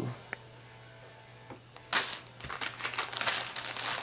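Plastic bait packs of soft-plastic jig trailers crinkling as they are handled and stacked. The crinkling starts about halfway in, after a quiet stretch broken by a single light click.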